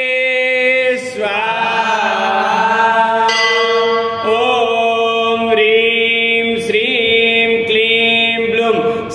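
Devotional mantra chanting in long, held sung notes that glide between phrases, over a steady musical drone.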